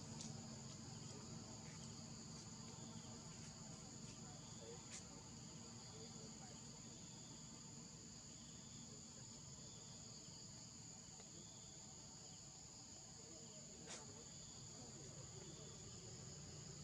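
Faint, steady high-pitched drone of forest insects, with a softer chirp repeating about once a second and a couple of faint clicks.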